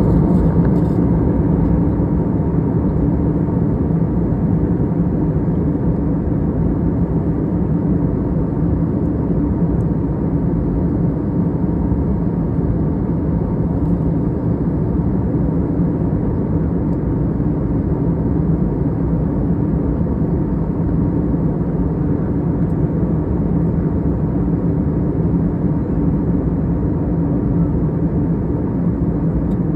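Jet airliner in cruise heard from inside the cabin: a steady, low drone of engine and airflow noise with a constant hum in it.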